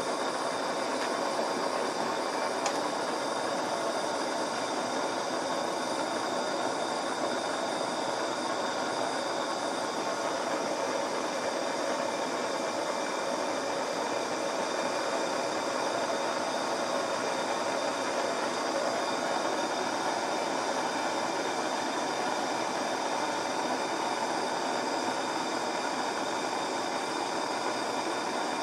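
A steady, unchanging mechanical whir with a faint hum in it, holding at one level throughout.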